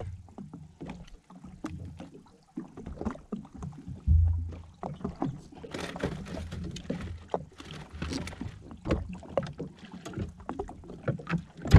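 Water slapping and lapping against the hull of a drifting jetski, with irregular knocks and rustles of gear being handled on board. A heavier low thump comes about four seconds in.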